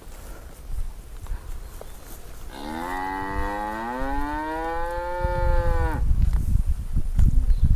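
A cow moos once, a long call of about three and a half seconds that rises in pitch at the start and then holds steady. A low rumbling noise follows near the end.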